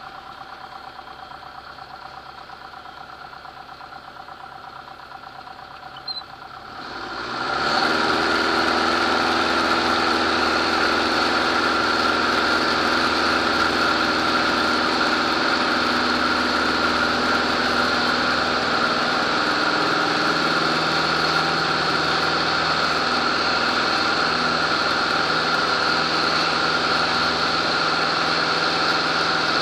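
Zenair CH-300 light aircraft's piston engine and propeller, heard inside the cockpit. It runs at low power, then about seven seconds in it is opened up quickly to full takeoff power and runs steadily at full power through the takeoff run and climb.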